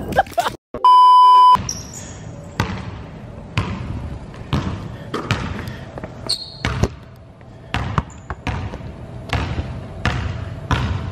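Basketball dribbled on a gym floor, each bounce echoing in the large empty hall, about one bounce a second, with a couple of short high squeaks. The dribbling starts about a second and a half in, right after a loud steady beep lasting under a second.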